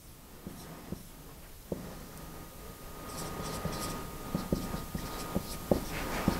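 Marker writing on a whiteboard: short taps and scratchy strokes as figures are written, getting busier and louder in the second half.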